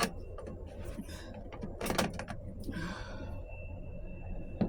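Metal parts of a 4L60E automatic transmission being handled during teardown: a click, a knock about two seconds in, then a short scraping slide.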